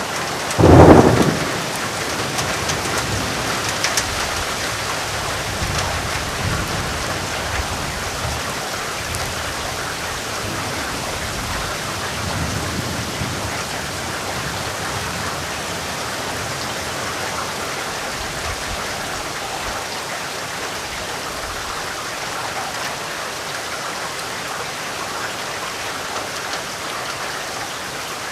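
Steady rain falling, with a loud clap of thunder about a second in and low rolls of thunder rumbling a few times after.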